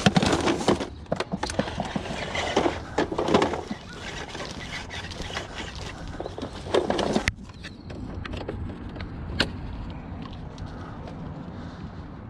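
A vacuum cleaner's power cord being pulled about, coiled and cut off with snips: irregular rustling, knocks and clicks, with one sharp click about nine seconds in.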